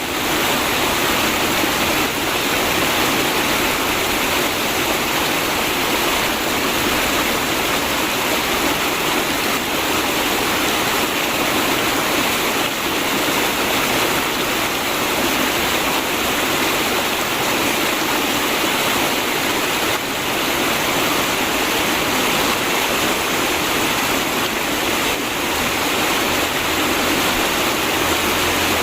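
River water flowing steadily, a continuous gurgling rush with no pauses or changes.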